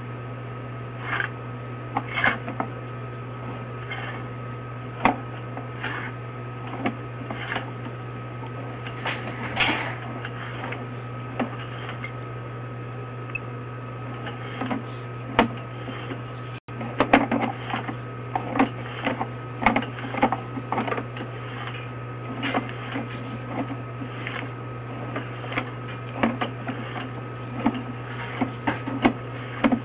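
Sewer inspection camera being pushed along a drain pipe: irregular clicks and knocks from the camera head and push cable over a steady electrical hum. The knocks come more often after about halfway.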